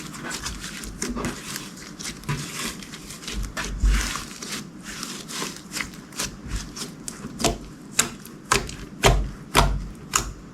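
Slime being pressed and squished by hand, making irregular sticky pops and clicks that come thicker and louder in the second half.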